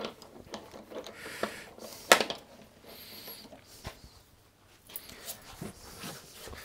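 Scattered small clicks and knocks from hands fitting and turning a sanding disc on a wood lathe, the sharpest click about two seconds in.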